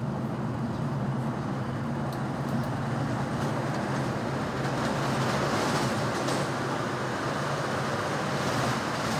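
MBTA Red Line subway car heard from inside the passenger cabin while running: a steady rumble of wheels on rail over a low, even hum.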